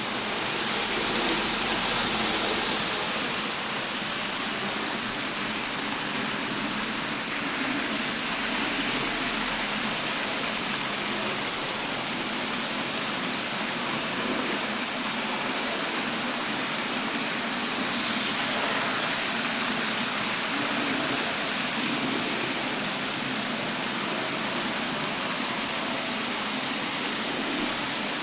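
A steady, even hiss with no distinct clicks, beats or tones.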